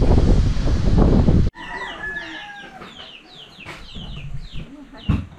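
Loud wind buffeting the microphone, which cuts off suddenly about a second and a half in. A rooster crowing follows, with many short, falling chirps around it.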